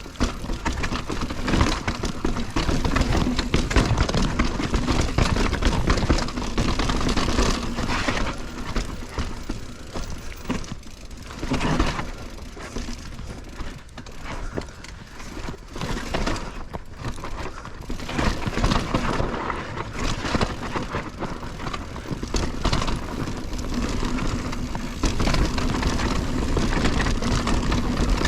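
Mountain bike being ridden over a rough dirt trail: a steady rumble of tyres and wind with frequent rattles and jolts from the bike.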